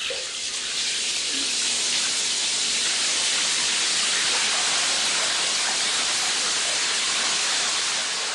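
Water running from a bathtub tap into the tub, a steady, even rush as the bath is filled.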